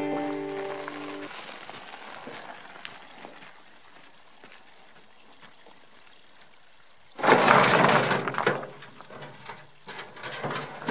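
Banjo music fades out, then after a few quiet seconds rocks clatter in a wheelbarrow and tumble out onto the rock pile: a loud rattle and crunch of stone about seven seconds in, followed by scattered knocks of rock on rock near the end.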